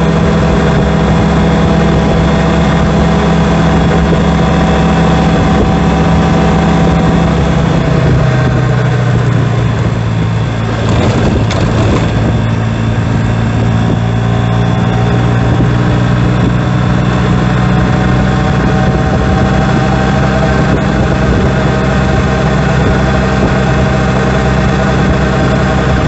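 Honda Gyro Canopy four-stroke scooter's drivetrain running with a steady, loud drone, which drops in pitch about eight seconds in as it slows and then holds steady again. This is the abnormal noise at 50 km/h that the owner traces to worn drive shaft bearing bushings. There is a brief rougher, noisier patch a few seconds after the pitch drop.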